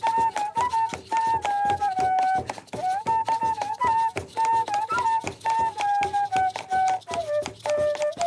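A chirimía ensemble playing: a cane flute carries a melody in short held notes over a steady, evenly spaced drumbeat.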